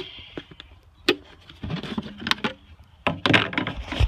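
Clicks, knocks and rattles of hands working the ATV's plastic air box, unclipping and lifting its lid. The loudest clatter comes about three seconds in.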